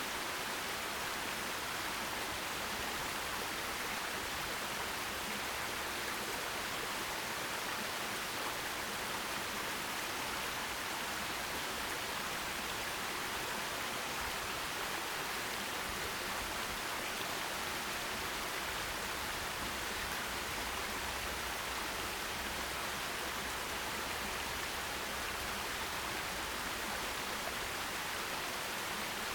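Forest stream, water running steadily over rocks in an even rushing hiss.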